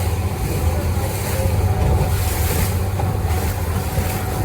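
Motorboat engine running steadily, with wind rushing over the microphone.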